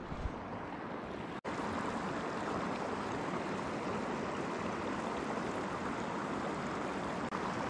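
Steady rushing of flowing river water, briefly cut off about a second and a half in.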